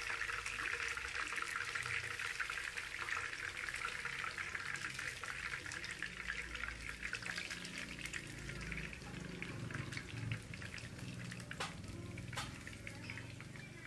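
Hot oil sizzling and crackling around chicken pieces being deep-fried and lifted out in a wire spider strainer. The sizzle slowly dies down, with two sharp clicks near the end.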